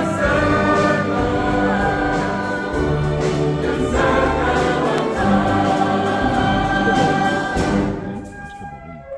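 A choir singing sustained chords with an orchestra. Near the end the choir drops out and the music grows quieter.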